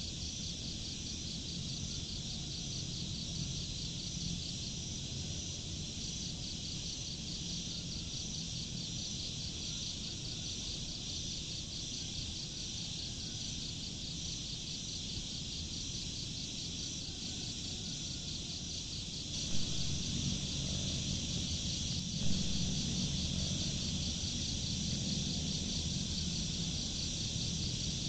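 Crickets chirping in a steady, evenly pulsing trill over a low rumble. The rumble grows louder about two-thirds of the way through, with two short knocks.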